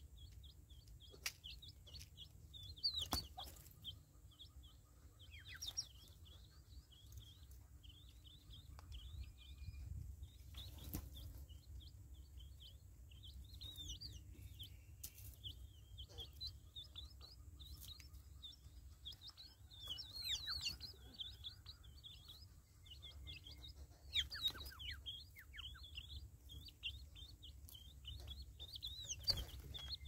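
Small birds chirping and twittering steadily in the background, with a few sharp clicks scattered through and a low rumble underneath.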